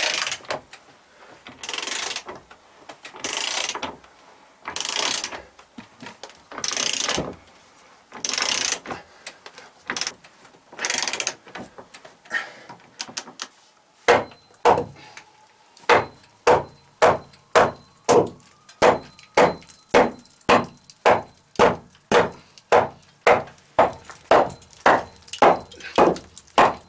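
Hand saw cutting through wood in even, rasping strokes. It starts with slow strokes about a second and a half apart, then picks up to about two quick strokes a second from about halfway through.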